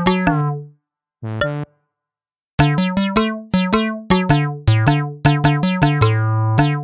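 Background music: short, plucky keyboard notes in a bouncy melody. It drops out twice within the first three seconds, then runs on in quick notes.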